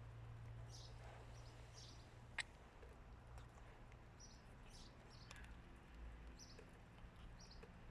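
Near silence: a faint low hum with scattered short, high chirps, and one sharp click about two and a half seconds in.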